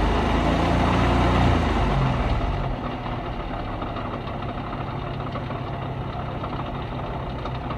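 Honda Beat's three-cylinder engine idling, with an irregular clattering rattle from the distributor, whose internal ball bearing has rusted and failed. It runs louder and deeper for the first two seconds or so, then settles to a steadier, quieter idle.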